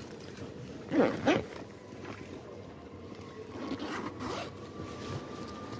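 Two quick rasping pulls a fraction of a second apart about a second in, then a few softer rasps near the middle, from a bag or packet handled close to the microphone.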